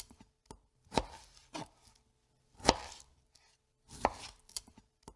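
Kitchen knife chopping food on a cutting board: about six or seven strokes at an unsteady pace, each a sharp knock followed by a brief rustle.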